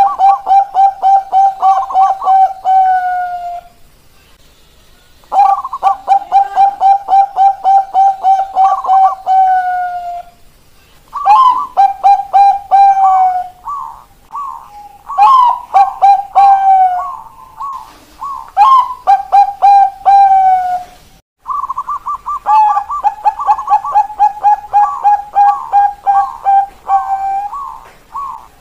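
Zebra doves (Bangkok-line perkutut) singing: several bouts of rapid, evenly repeated coos, each run a few seconds long with short pauses between.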